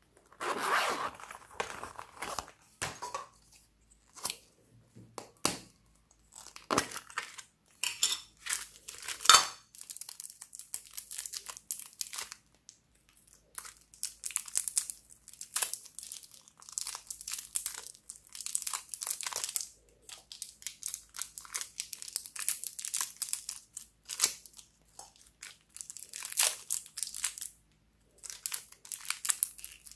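Thin plastic wrappers crinkling and tearing as small wrapped items are unwrapped by hand, in irregular short crackly bursts with brief pauses between them.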